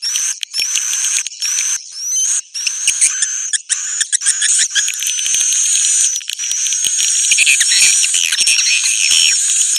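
Dense, continuous songbird song from a bird-lure calling track: fast chattering phrases broken by short, high, rising whistled notes repeated over and over.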